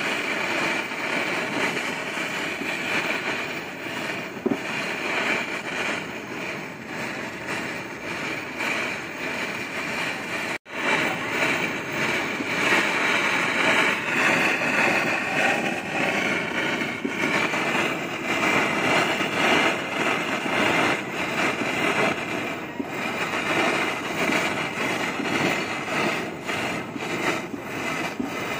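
Steady roar of a gas torch flame used for melting gold. It cuts out for an instant about ten seconds in and comes back a little louder.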